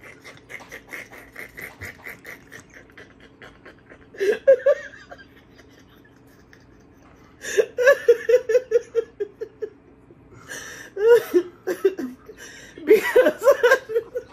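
Two people laughing hard in fits: faint rapid breathy laughter at first, then loud outbursts about four, seven and a half, eleven and thirteen seconds in.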